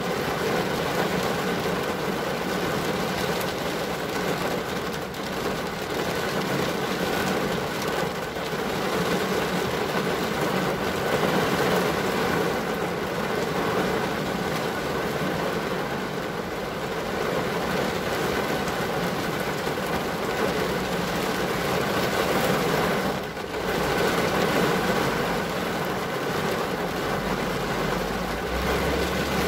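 Steady rain on a car's glass heard from inside the car, mixed with the even drone of a running vehicle; a deeper low rumble comes in near the end.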